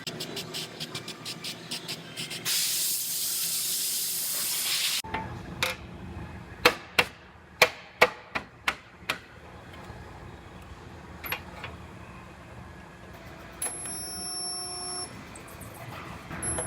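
Shop work on a car's steel frame rail: a steady hiss for about two and a half seconds, then a quick run of sharp metal strikes.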